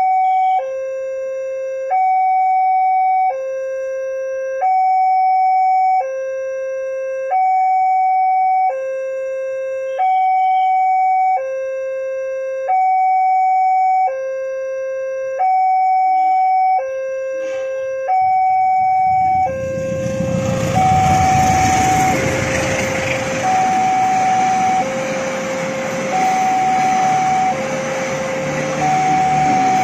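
Railway level-crossing alarm sounding a two-tone electronic warning, a higher and a lower tone alternating about every 1.3 seconds. About twenty seconds in, the noise of a passenger train passing over the crossing swells up loud under it, with the alarm still sounding.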